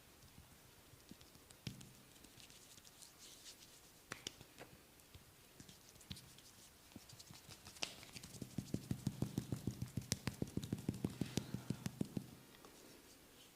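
Percussive massage: a fast, even run of tapping strikes on the body, about five or six a second, starting a little past halfway and lasting about four seconds. Before it come soft rubbing and scattered light clicks.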